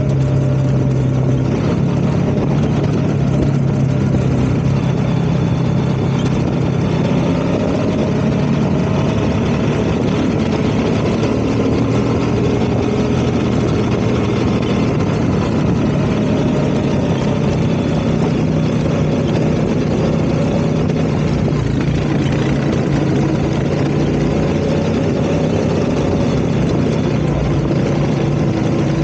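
ATV engine running steadily, its pitch drifting slightly up and down.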